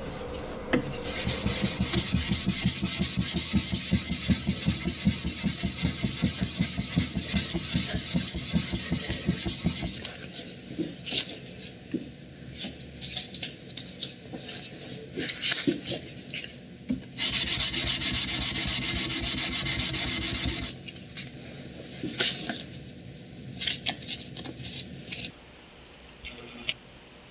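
Hand abrading of a knife workpiece: fast, even back-and-forth rubbing strokes for about ten seconds, then slower, scattered strokes with a steady hissing stretch in the middle of that part.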